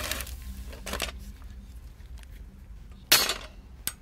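Spring-loaded automatic center punch firing against a steel bracket tab: a sharp metallic click about three seconds in, with a lighter click near the end and small metal handling clinks before it.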